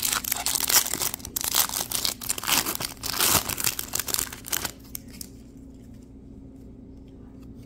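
Foil trading-card pack wrapper being torn open and crinkled by hand, a dense crackling that stops about five seconds in.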